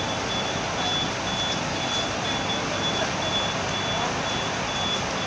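A vehicle's reversing alarm beeping steadily at about two beeps a second, one high tone, over the steady hubbub of a busy outdoor bus station.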